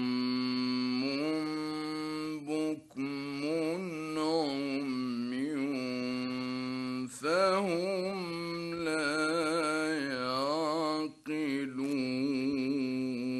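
A man reciting the Quran in the melodic mujawwad style, drawing out a long ornamented phrase of held notes with trembling melismatic runs, broken by a few short pauses. It is an early-1960s Egyptian radio recording.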